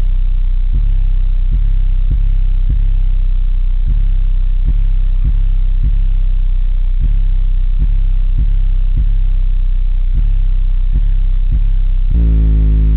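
Car stereo subwoofers playing a bass-heavy rap section very loud: a deep, steady bass with a sharp hit about every three-quarters of a second. The bass pushes a trash bag stretched over the car window in and out.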